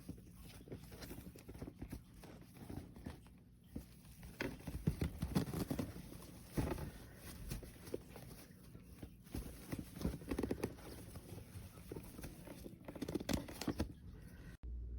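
Irregular light clicks, taps and rustles of handling, scattered unevenly.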